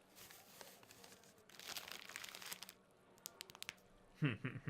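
Paper rustling and crinkling as a letter is handled, with a longer crumpling stretch about two seconds in and a few sharp little clicks after it.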